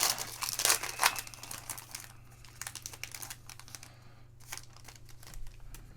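Sports card pack wrapper crinkling as it is torn open, loudest in the first second, then softer rustles and short clicks of trading cards being handled and shuffled through.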